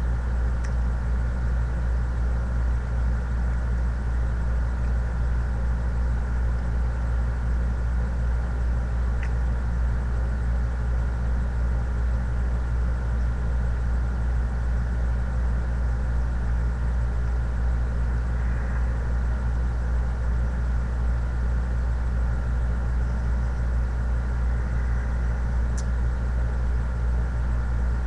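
Steady low hum with a faint higher tone above it, unchanging throughout, with a few faint ticks.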